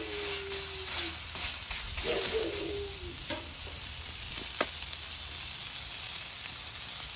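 A thick, hand-formed 6-ounce beef patty sizzling steadily on a hot flat-top griddle, just laid down raw to start cooking. A single sharp click comes about four and a half seconds in.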